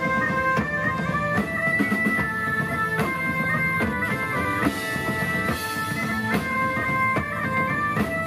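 Several medieval-style bagpipes playing a tune together live, with drums and a strummed long-necked string instrument underneath.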